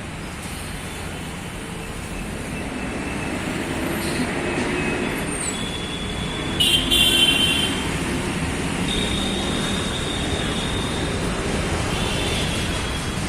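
Busy road traffic running steadily, with vehicle horns honking several times; the loudest honk comes about seven seconds in.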